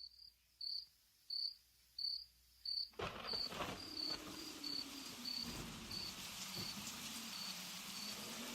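Cricket chirping in short, evenly spaced chirps, about three every two seconds. A soft steady hiss joins about three seconds in.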